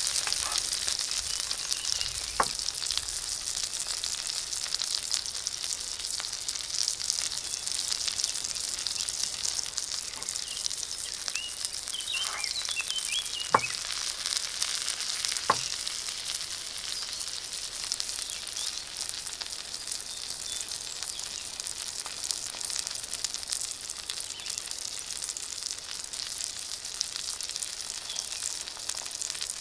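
Steak frying in hot fat in a cast-iron skillet: a steady crackling sizzle that eases slightly, broken by a few sharp ticks.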